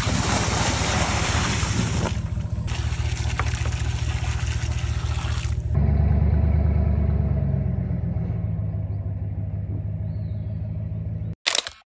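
Water pouring and splashing out of a five-gallon bucket, with a short break about two seconds in, over the low hum of a pickup's engine idling. About six seconds in this gives way to the Ram pickup's engine running as the truck drives off, the rumble slowly fading, and a short burst of another sound near the end.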